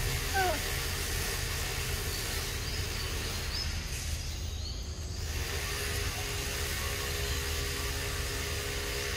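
Outdoor background noise: a steady low hum under a wide hiss, with a short falling squeak about half a second in and a few faint high chirps. A steady droning tone comes in about halfway through.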